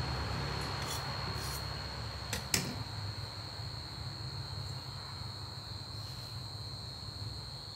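Steady high-pitched insect trill over a low background hum, with a couple of light clicks about two and a half seconds in.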